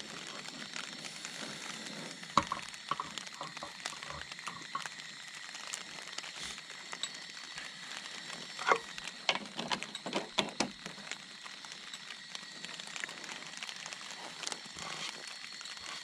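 Scattered clicks, knocks and rustles of camp cooking gear being handled while setting up to brew coffee, loudest in a cluster just past the middle, over a steady background hiss.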